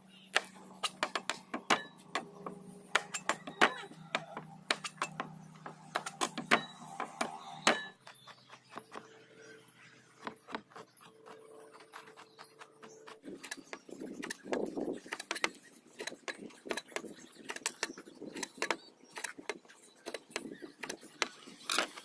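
Chef's knife chopping garlic on a plastic cutting board: quick, irregular knocks of the blade against the board, several a second.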